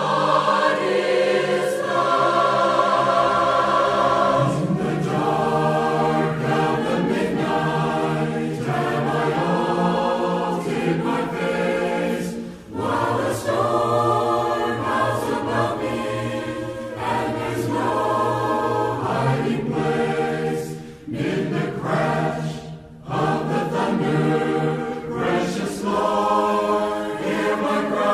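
A choir singing in several voices with long held notes, playing as background music.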